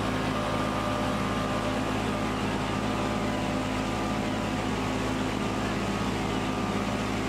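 Muddy floodwater gushing from the open end of a pump discharge hose onto the street, over the steady hum of the running pump. The floodwater is being pumped out.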